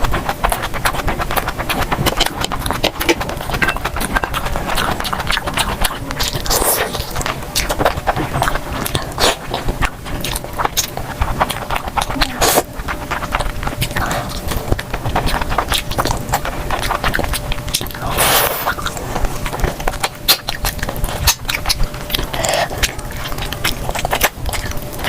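Close-miked eating: chewing and mouth noises made up of many quick, sharp clicks and smacks, with a few longer swallowing or slurping sounds.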